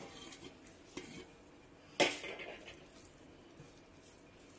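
A silicone spatula stirring minced meat and chopped coriander in a nonstick pan: soft scraping with a few knocks against the pan, the loudest a sharp knock about two seconds in, then quieter stirring.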